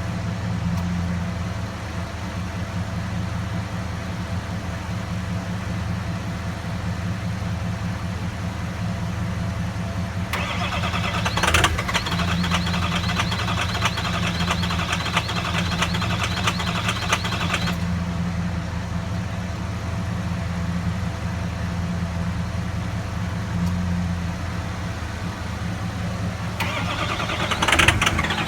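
Ford 6.0L Power Stroke V8 diesel running rough, a steady low drone with a fast uneven beat, its injectors failing (number 7 nearly dead, number 3 going). A higher rattling sound joins for several seconds in the middle and again near the end.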